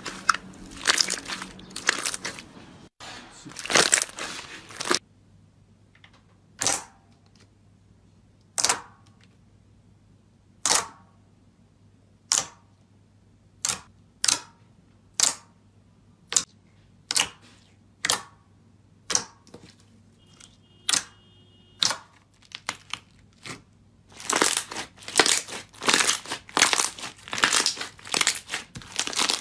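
Slime being handled, making crisp crackles and pops. It crackles densely for the first few seconds, then gives single sharp pops, at first about two seconds apart and then about one a second. Dense crackling returns near the end.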